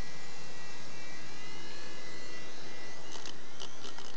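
Topp Toys Gyro 1215 coaxial toy RC helicopter hovering: its small electric motors and spinning rotors give a steady high whine. Several sharp ticks come about three seconds in.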